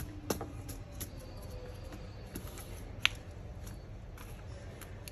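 A few light plastic clicks and taps as a replacement laptop keyboard is pressed down into the plastic top case, with one sharper click about three seconds in, over a low steady background hum.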